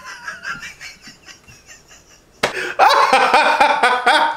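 A man laughing: quiet, rapid pulses of laughter that break into loud, full laughter about halfway through.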